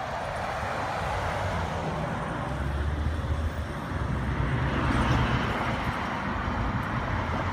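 1964 Peugeot 404 convertible with a swapped-in BMW engine driving slowly at low revs, its engine hum growing louder as it comes closer, over a steady wash of street traffic.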